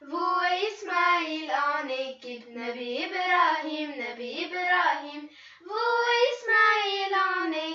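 A child singing the chorus of a nursery rhyme in one voice, in sung phrases with a brief pause about five seconds in.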